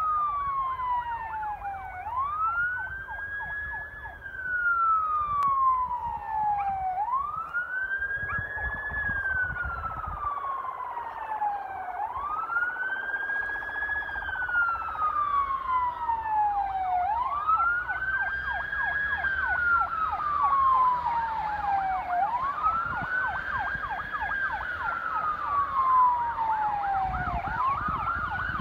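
Emergency vehicle siren in slow wail, rising and then falling in pitch in cycles of about five seconds, with a fainter second siren sounding along with it, as emergency vehicles respond to a fire.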